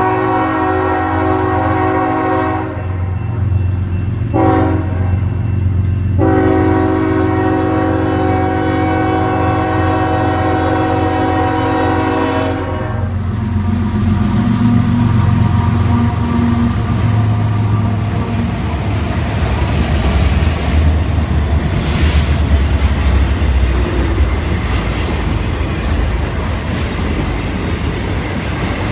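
Diesel locomotive air horn sounding the end of a grade-crossing signal: a long blast, a short one about four seconds in, then a long one held until about 13 seconds in. After the horn the lead Union Pacific locomotives pass with a deep engine rumble. Then intermodal freight cars roll by with steady wheel rumble and clatter.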